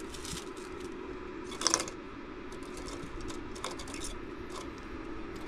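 Pieces of aluminum wire clinking and rattling as they are loaded into a metal-melting furnace's crucible, with the loudest cluster of clinks about a second and a half in and a few lighter ones later, over a steady low hum.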